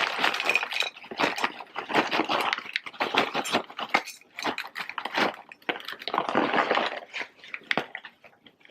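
Popped microwave popcorn being poured and shaken out of its paper bag into a bowl: a dense rustling patter of light kernels, in a few bursts, thinning to scattered taps near the end.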